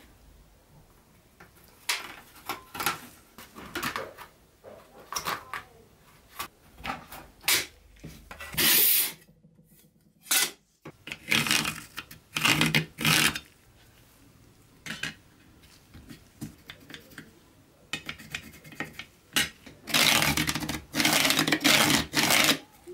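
Pencil scratching along a steel ruler over embossed sheet metal in several scratchy strokes, with clicks and taps as the ruler and metal strip are handled and set down on the wooden bench.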